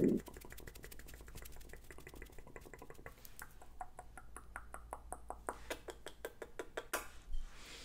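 Gum chewing close to the microphone: a quick, steady run of soft wet clicks and smacks, several a second. A brief louder rush of noise comes near the end.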